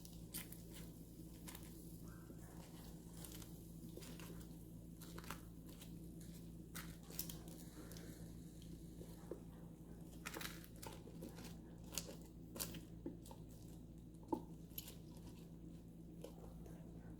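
Faint sizzling and crackling of chicken wings being turned over in the hot Ninja Speedi, with scattered light clicks and taps over a steady low hum.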